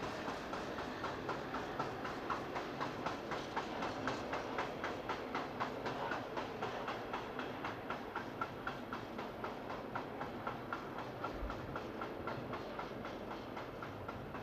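Freight train wagons rolling along the track, their wheels clicking in a steady rhythm of about two to three clicks a second over a running rumble, slowly growing fainter.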